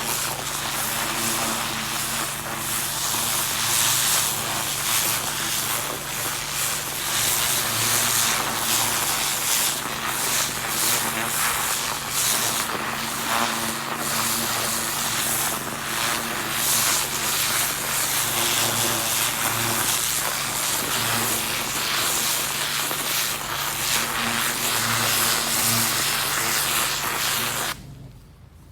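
Pressure washer running steadily, its low motor hum under the loud hiss of the water jet blasting into the soil and bark mulch to loosen out the weeds. It stops abruptly near the end.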